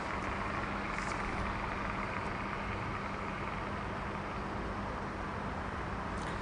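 Steady outdoor urban ambience: an even hiss of distant traffic with a constant low hum. Two faint clicks come about a second in and near the end.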